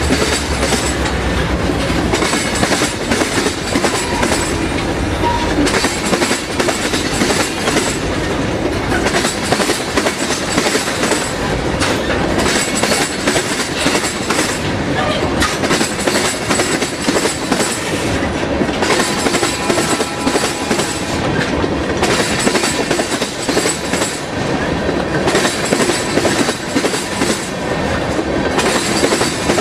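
EMD 645 two-stroke V16 diesel prime mover of a freight locomotive running steadily, a loud, dense mechanical din with a deep low rumble that drops away about two seconds in.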